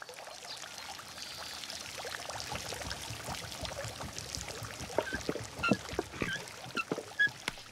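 Quiet background sound effects: a steady watery hiss dotted with many small clicks, joined from about five seconds in by a few short, high chirps.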